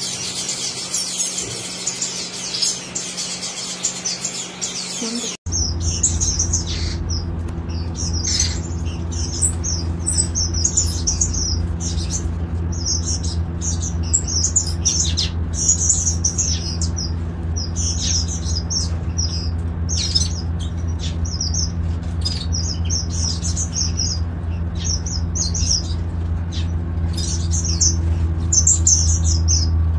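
Aviary finches chirping: a dense, continuous chatter of many birds at first, then after an abrupt change about five seconds in, repeated short high chirps over a steady low hum.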